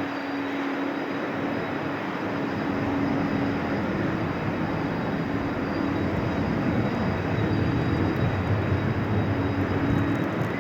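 Jet engines of an Airbus A350-900 airliner (Rolls-Royce Trent XWB) running during its landing: a steady rushing noise with a low hum, growing slightly louder toward the end.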